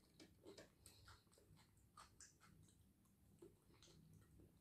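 Faint chewing of white-fleshed dragon fruit, with small irregular mouth clicks.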